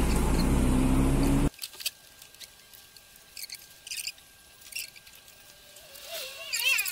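A steady engine hum that cuts off suddenly about a second and a half in, then faint scattered clicks of a hand tool working on a Harley-Davidson Electra Glide to get at its battery, with a wavering high squeak near the end.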